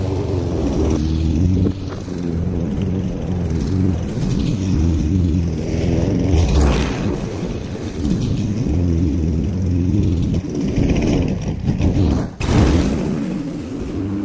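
Small petrol lawn mower engine running, its pitch and level wavering slightly, with a brief sharp dip about twelve seconds in.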